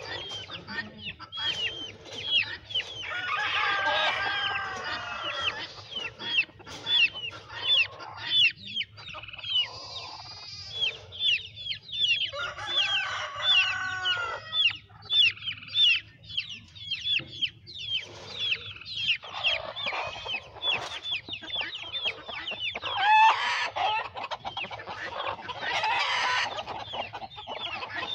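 Baby chicks peeping almost continuously, a rapid string of short, high, falling chirps, with adult chickens clucking and calling over them at times.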